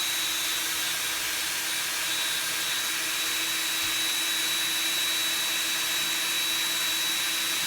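Electric drill running at a steady speed with a constant high whine, boring a pilot hole through a pine shelf, pre-drilled so the wood won't split.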